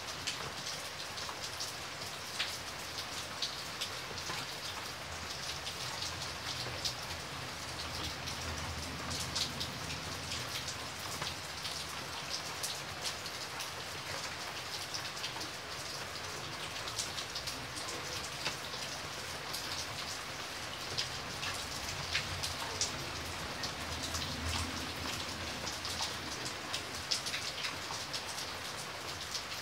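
Steady rain falling on standing water and wet ground: an even patter of drops with many small sharp ticks.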